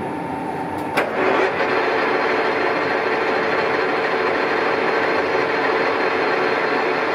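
Colchester Triumph 2000 lathe turning a long shaft. About a second in, the tool bites in for a light skim cut with a sharp onset, and the cut then runs on louder with a steady tone. This is chatter: the unsupported shaft vibrating under the tool.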